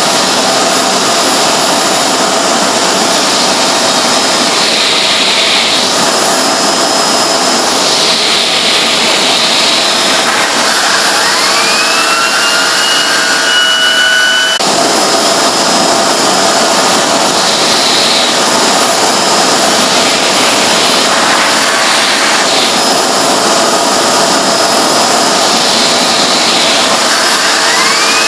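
Hoover Globe bagless vacuum cleaner running with a loud, high-pitched scream. Its noise swells and whooshes every few seconds. Twice a whine rises and holds at a high pitch; the first time it cuts off suddenly.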